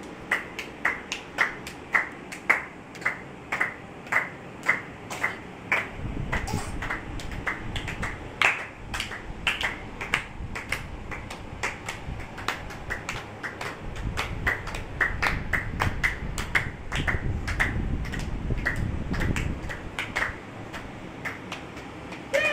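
A steady run of sharp clicks, about two a second. A low rumbling noise comes in around six seconds in and again from about fourteen to twenty seconds.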